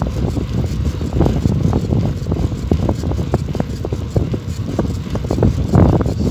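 Wind buffeting the microphone of a camera riding on a moving bicycle: a loud, irregular rumble, with frequent short knocks and rattles.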